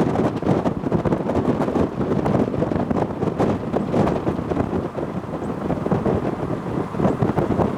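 Wind buffeting the microphone, an uneven, gusting rumble.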